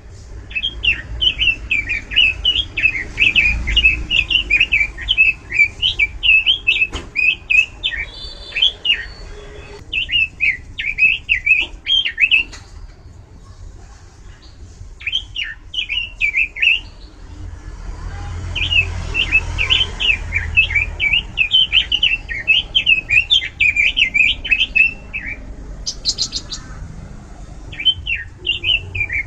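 Pekin robin (red-billed leiothrix) singing loudly in fast, varied warbling runs, in several bursts broken by short pauses.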